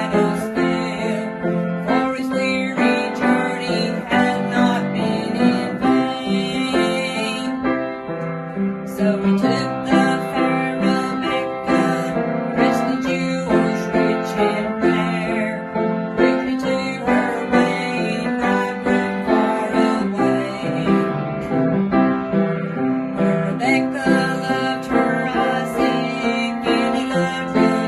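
A woman singing a gospel song with piano accompaniment, the piano playing steady chords under her voice.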